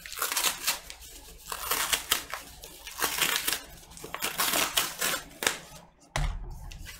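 Cardboard vinyl-record mailer being torn open by hand: a run of uneven ripping and crinkling bursts, then a dull thump a little after six seconds.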